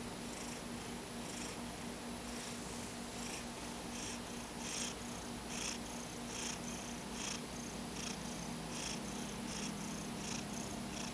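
Sleeping domestic cat snoring, a high hissing breath noise repeating a little faster than once a second, becoming regular about four seconds in.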